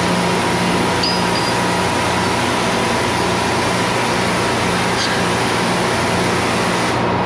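Steady loud engine-room machinery noise from running tugboat plant, an even hiss over a low hum. The highest part of the hiss drops away suddenly near the end.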